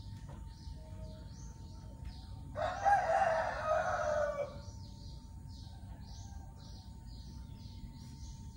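A rooster crowing once, a call of about two seconds near the middle that falls in pitch at its end. Faint high chirping repeats about three times a second behind it.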